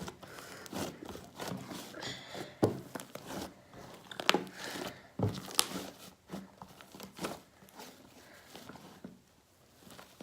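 Fluffy glue-and-shaving-cream slime being worked and squished while paint is mixed in, giving irregular sticky pops and clicks, a few of them sharper.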